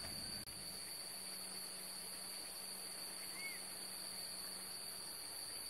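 Steady, high-pitched chorus of insects, with a faint low hum under it through most of the stretch.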